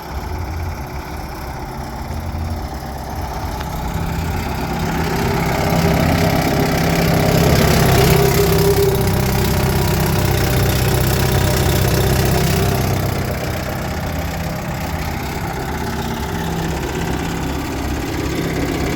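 1964 Johnson 3 hp twin-cylinder two-stroke outboard motor running, growing louder from about four seconds in, loudest around eight seconds, then easing back down after about thirteen seconds.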